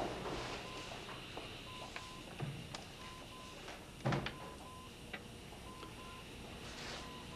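Short electronic beeps at one steady pitch from a hospital patient monitor, repeating at uneven intervals. Two soft thuds come about two and a half and four seconds in.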